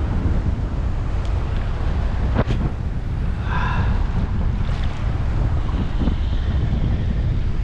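Strong wind buffeting the microphone over the wash of choppy surf, with a sharp click about two and a half seconds in and a brief high squeak about a second later.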